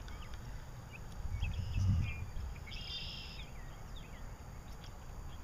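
Small birds chirping in short high notes, with one longer, brighter call about three seconds in, over an uneven low rumble.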